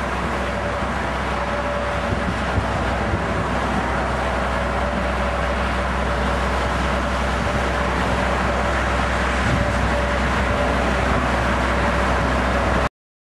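Steady vehicle noise: a low rumble under an even hiss, with a faint steady hum. It cuts off suddenly near the end.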